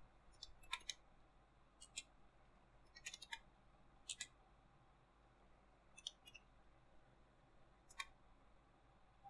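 Computer keyboard keystrokes: slow, scattered single key presses with pauses of a second or more between them.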